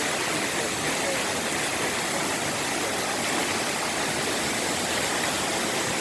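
Water of Ouzoud Falls, a large waterfall, pouring and rushing steadily: an even, unbroken hiss with no rises or pauses.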